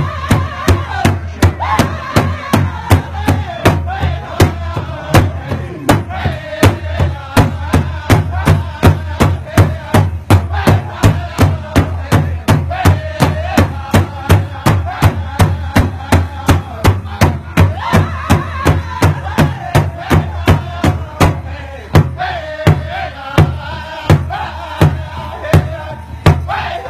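A crowd of voices chanting to a loud, steady beat struck about twice a second.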